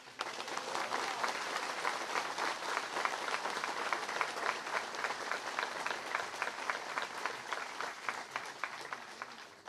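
Crowd applauding with dense, steady clapping that starts suddenly and dies away near the end.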